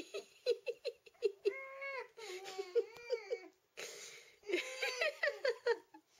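A small pet whining in runs of short, high cries, with longer wavering, rising-and-falling calls about two and three seconds in and again near the end.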